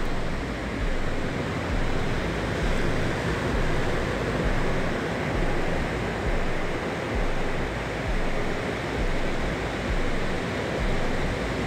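Steady rush of ocean surf, a continuous even wash of noise that swells and eases gently.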